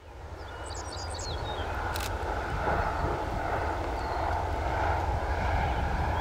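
Diesel locomotives of a Norfolk Southern freight train approaching: a steady low rumble that builds over the first two seconds and then holds.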